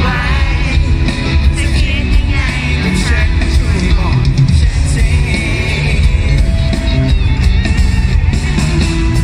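A live pop band playing a song, with electric guitar, keyboards and singing, loud and bass-heavy as heard from the crowd.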